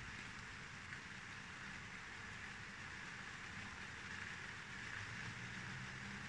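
Faint, steady hiss of rain falling during a night thunderstorm. There is no thunderclap.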